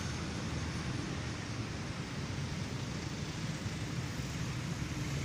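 Steady outdoor background noise with a low hum underneath, like distant road traffic and air moving past the microphone.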